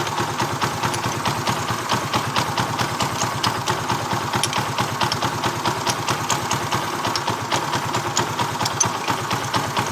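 Small motorcycle engine idling steadily, with an even pulse and no knocking: the timing chain is held taut by a freshly adjusted manual tensioner.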